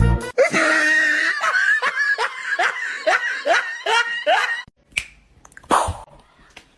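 A person laughing in a rapid run of repeated 'ha' syllables, each falling in pitch, for about four seconds. It breaks off and is followed by a couple of short, sharp sounds.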